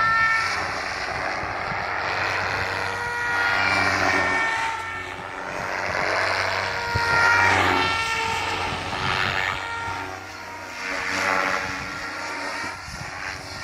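Electric RC helicopter (Goblin 700 Competition with a three-blade main rotor, Kontronik Pyro motor) in flight: a whine from the motor and gears over the rotor noise, swelling and fading and bending up and down in pitch every few seconds as it passes back and forth.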